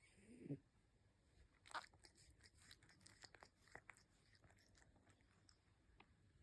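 A sleeping animal gives a short snore-like grunt that falls in pitch, then makes a run of faint, irregular clicks like mouth smacking or chewing.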